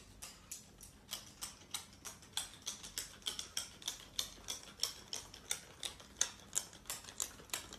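A dachshund's claws clicking on a hard laminate floor as it trots, light sharp ticks about four a second.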